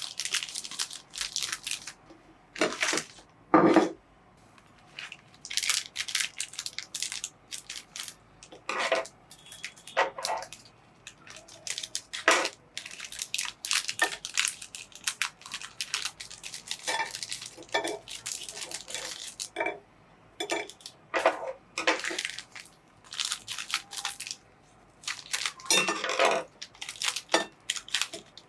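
Biscuits crunching and cracking as they are crushed in a meat grinder: irregular bursts of crunching with short pauses between them.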